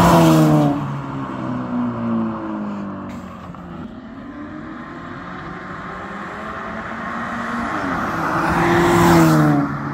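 Volkswagen Passat NMS 1.8 TSI turbo four-cylinder with a custom exhaust driving past. The exhaust note is loudest as the car passes in the first second, then drops in pitch and fades as it pulls away. It grows louder again as the car comes back and passes a second time near the end.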